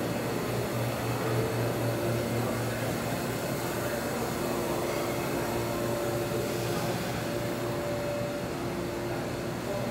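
Steady mechanical hum and air noise of a large, nearly empty train station concourse, with a low drone and a few faint steady tones over it.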